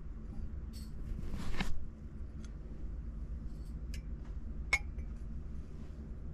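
Glazed ceramic mugs knocking and clinking lightly as they are lifted off a crowded shelf and handled. There is a short scrape about a second and a half in, and one sharper, ringing clink about three quarters of the way through.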